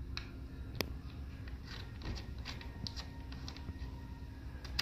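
Small metal clicks and taps of mounting pins being handled and fitted into a door operator's metal mounting bracket. Two sharper clicks stand out, one about a second in and one at the end, over a low steady hum.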